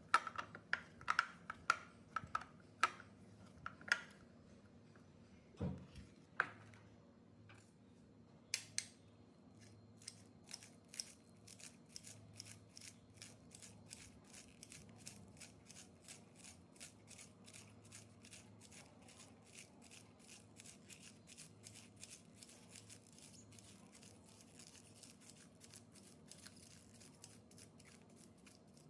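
Hands mixing crumbly cracker dough in a bowl, with irregular scrapes and clicks for the first few seconds and a dull thump about six seconds in. Then a knife finely chopping green onions on a hard board, in a steady run of quick cuts about three a second.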